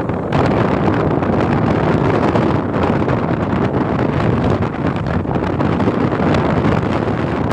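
Strong storm wind blasting across the microphone, over the steady rush of big waves breaking.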